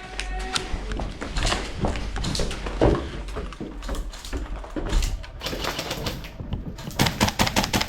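Airsoft guns firing: a string of sharp clicking shots, coming thick and fast near the end.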